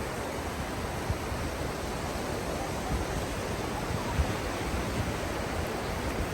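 Sea surf washing on a beach: a steady, even rush of waves, with a few brief low thumps on the microphone.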